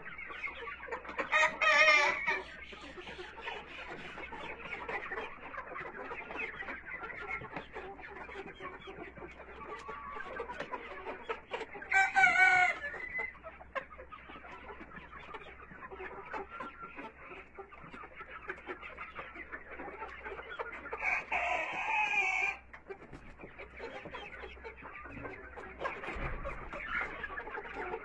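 A flock of black Australorp hens clucking continuously while feeding. Three louder, drawn-out calls stand out: about two seconds in, near the middle, and about three quarters of the way through.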